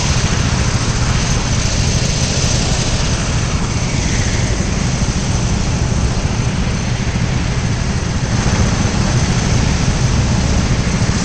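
Go-kart engine running hard at speed, a steady low drone under a loud rushing noise of wind and track on the onboard microphone.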